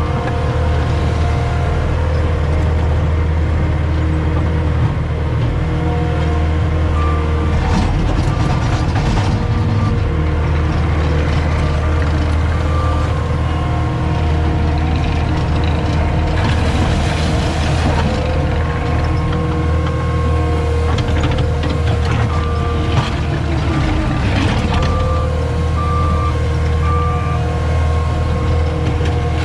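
CAT 259D compact track loader's diesel engine running steadily under working load, with a reversing alarm beeping on and off and several brief surges of rattling and scraping as it works.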